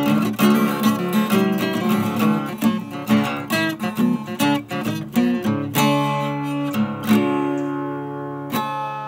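Acoustic guitar in drop D tuning played fingerstyle: a quick run of picked notes, then from about six seconds in, notes and chords left to ring and slowly fade.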